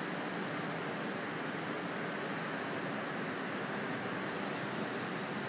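Distant ocean surf, a steady even wash with no single wave standing out.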